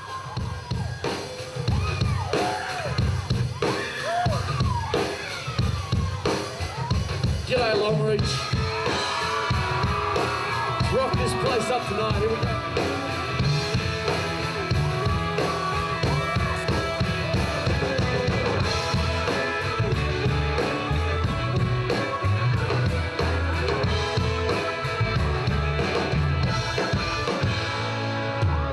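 Live country-rock band playing, with a drum kit keeping a steady beat. The music kicks in at the start and gets fuller about eight seconds in.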